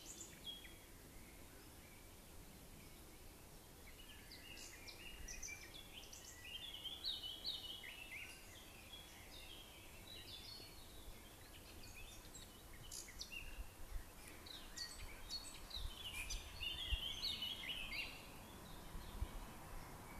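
Small birds singing in repeated bursts of quick high chirps and trills, over a faint low rumble of outdoor background noise.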